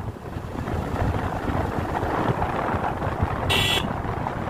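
Motorcycle riding along a road, wind buffeting the microphone over the engine's low rumble, with a brief high hiss about three and a half seconds in.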